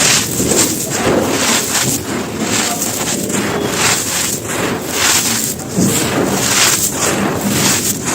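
Soft, dry stone-like material being crushed and crumbled: a dense, continuous run of crunches and crackles.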